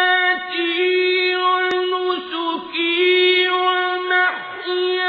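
Unaccompanied vocal chanting: a single voice holds long, steady notes, with a few brief breaks between phrases.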